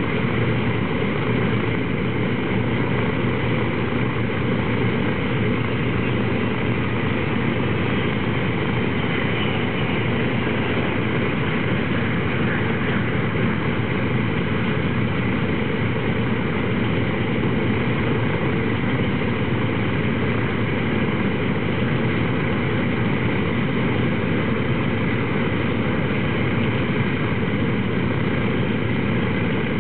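Boeing B-29 Superfortress's Wright R-3350 eighteen-cylinder radial engines running steadily with propellers turning, the aircraft standing still.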